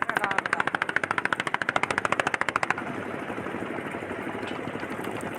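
A small engine running with a fast, even putter of about fifteen beats a second. The putter stops abruptly about two and a half seconds in, leaving a steady hiss.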